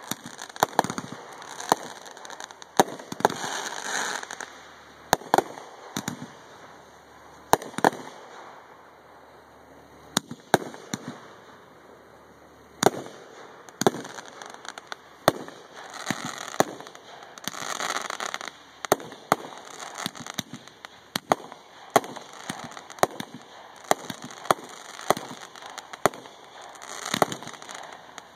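Multi-shot aerial firework shells going off in quick succession: many sharp bangs from launches and bursts, with crackling between them and a lull of a few seconds about a third of the way in.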